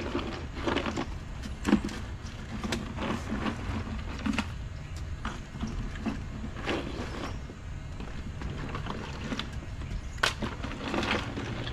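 White bass being taken out of a plastic cooler and set down on a folding table: irregular knocks, slaps and handling clatter over a steady low rumble.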